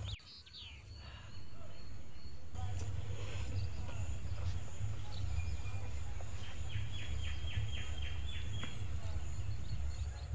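Outdoor ambience of birdsong over a steady low rumble, with one bird giving a rapid run of about eight chirps a little past the middle. The sound drops away briefly in the first second before the rumble returns.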